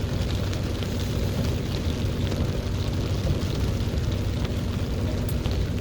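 Deep rumble of wind on the microphone and water noise aboard a sailboat under way in choppy, rainy conditions, with a faint steady hum underneath and scattered light ticks. Near the end it cuts sharply to a louder, deeper rumble.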